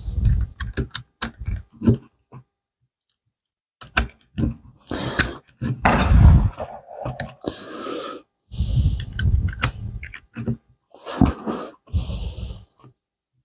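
Cartridges being loaded into a pistol magazine with a magazine loader: irregular clicks and clacks of metal and plastic, with a short pause about a third of the way through.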